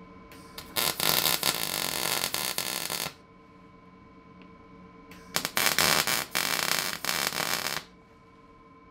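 Wire-feed welder laying two tack welds on steel frame tubing, each a crackling arc of about two and a half seconds, with a pause between them in which only a faint steady hum remains.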